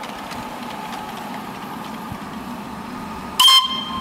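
Small ride-on live-steam locomotive running steadily past on miniature railway track. Near the end, a short loud whistle toot.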